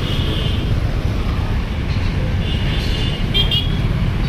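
Busy street traffic with a steady low rumble, broken by short vehicle horn toots near the start and again about two and a half to three and a half seconds in.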